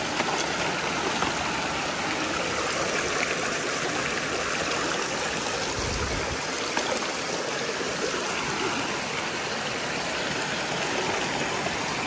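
Waterfall water streaming over rock in a steady rush.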